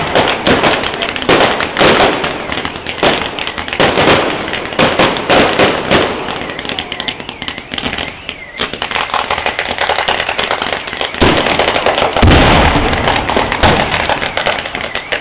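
Fireworks going off in rapid succession, dense bangs and crackling, easing for a moment about halfway through and then heavier bangs again.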